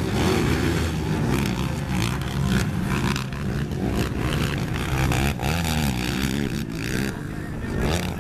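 Sport quad (racing ATV) engines revving hard, their pitch rising and falling again and again as the riders work the throttle through the jumps and turns of a dirt motocross track.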